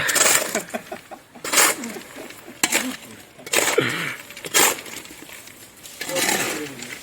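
Hand digging tool striking hard, stony soil: five sharp blows about a second apart, with brief voices in between.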